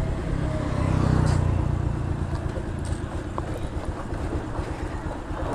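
Motorcycle engine running with road noise, a steady low hum that swells about a second in and then gets quieter over the following seconds.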